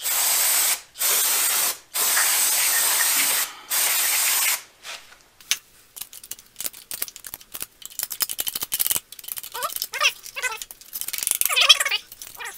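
Aerosol spray can of cleaner hissing in four bursts of about a second each, degreasing an oil-soaked small engine, followed by light clicks and rubbing.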